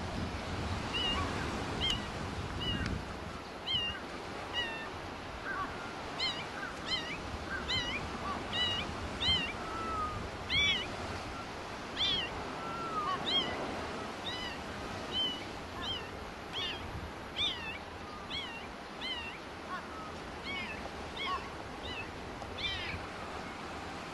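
High-pitched calls repeated about once or twice a second, each short and hooked in pitch, over a low steady rushing noise.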